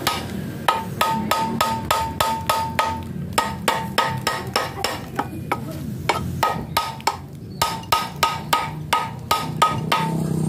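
Hammer blows on the metal impeller of an Alkon irrigation water pump, about three a second with a short pause past the middle, each strike ringing briefly. The impeller is being knocked loose from a rusted shaft.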